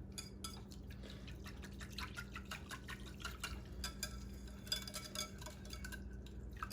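Wire whisk stirring a thin liquid sauce of broth, soy sauce, ketchup and honey in a container: quick, irregular light clinks of the wires against its sides, with the liquid sloshing faintly.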